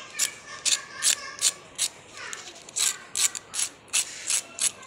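Crisp deep-fried crust of a chicken-and-potato donut crackling as it is handled, a string of sharp cracks about three a second with a short pause midway: the sound of a very crispy shell.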